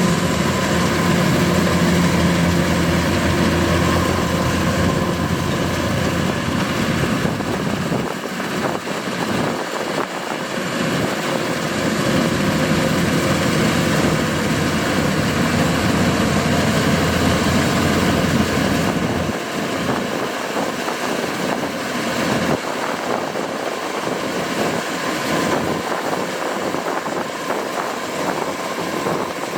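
Kubota DC-105X rice combine harvester running steadily: its diesel engine and harvesting machinery make a continuous mechanical drone. The deep low rumble weakens for a few seconds about a third of the way in, and again from about two-thirds of the way in.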